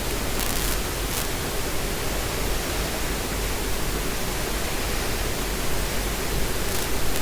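Steady hiss at an even level with a faint low hum beneath it and a few faint ticks.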